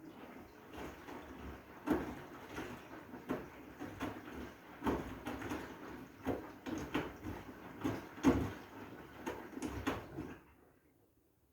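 Washing machine drum turning a load of blankets in water: a swishing wash with irregular soft thumps as the heavy load falls. The drum stops near the end, a pause in the wash cycle.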